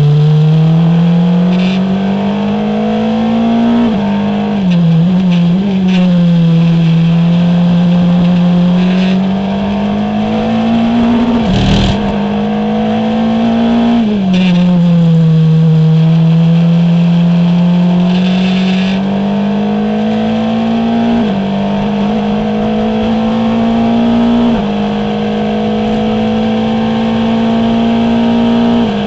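Formula Renault 2.0 race car's four-cylinder engine heard on board at racing speed. The note climbs under acceleration and drops back repeatedly, with quick steps down in pitch at gear changes in the second half and a single sharp knock about twelve seconds in.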